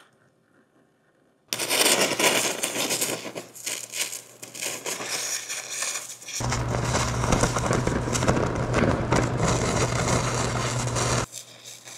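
A 2,000-watt laser burning into an iMac's circuit boards and metal: a sudden loud, dense crackling and popping that starts about a second and a half in. A steady low hum joins it about six seconds in, and both cut off abruptly near the end.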